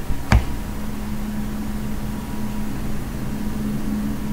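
A steady low hum over background hiss, with one sharp click about a third of a second in.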